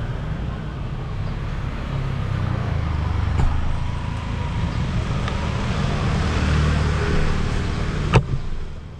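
Road traffic noise: a low rumble of vehicles that swells twice, with a single sharp knock near the end.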